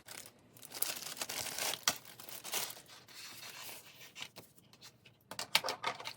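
Plastic packaging being handled, rustling, crinkling and tearing, with scattered sharp clicks and taps in the second half.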